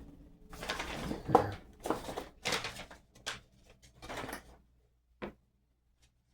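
Small metal lock parts being handled on a bench while a lock is taken apart: a couple of seconds of scraping and rattling, then a few separate light clicks.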